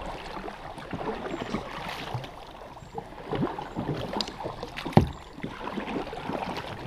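Water splashing and churning at the bow of a plastic canoe as a child in the water, holding onto the bow, kicks while the boat is paddled along. A single sharp knock comes about five seconds in.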